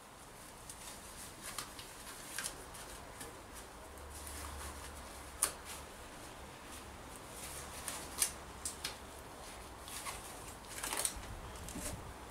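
Thin disposable gloves being pulled on and worked over the hands: soft crinkling rustles broken by irregular sharp clicks and snaps.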